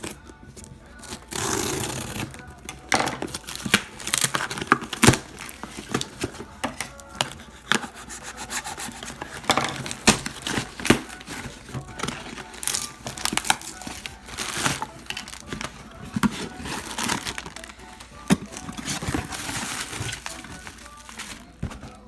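A mailed package being opened by hand: packaging rustling, crinkling and tearing, with many sharp crackles and scrapes. The noise is irregular and fairly loud.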